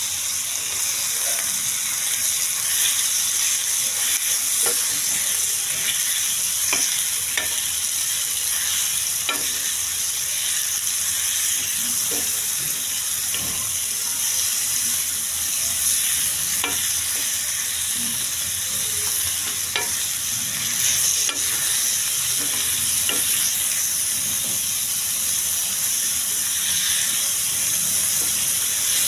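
Chicken pieces and green pepper sizzling in hot oil in a flat pan, a steady frying hiss, while a metal slotted spoon stirs them, scraping and clicking against the pan now and then.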